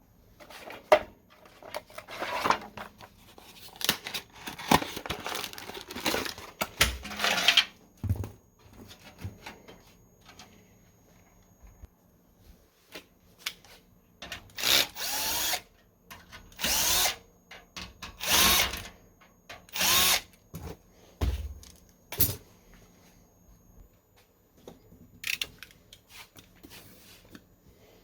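Small electric screwdriver driving screws in several short bursts, each spinning up and stopping, with parts being handled and rattled between them.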